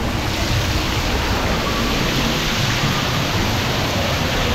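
Steady rush of spraying and falling water from a water-park splash play structure, an even hiss with a low rumble underneath.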